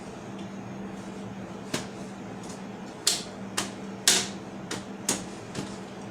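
Sharp clicks and clacks of desktop computer parts being handled during a memory installation, about seven in a few seconds, loudest around the middle, over a steady low hum.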